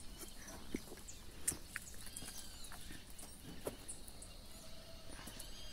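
Quiet rural outdoor ambience: faint scattered bird chirps, a few short arched calls, and occasional light clicks over a low steady background.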